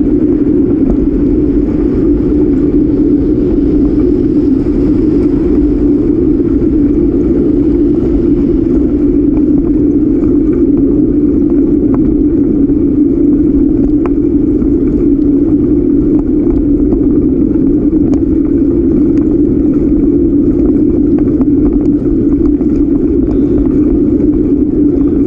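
Steady rush of wind and rolling noise picked up by a camera riding on a moving bicycle, a loud unchanging hum with a low rumble under it.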